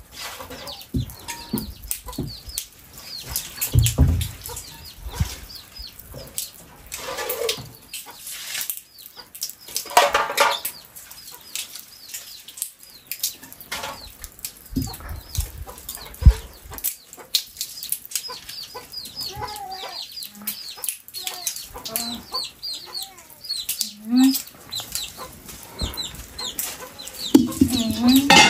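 Chickens clucking, with many short high-pitched calls scattered throughout. Now and then there is a knock or clatter as pots and basins are handled.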